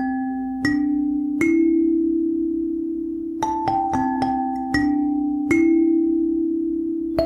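Background music: single struck notes, each ringing out and fading, over a held low note that steps to a new pitch now and then. Two notes come early, then after a pause of about two seconds a quicker run of notes follows.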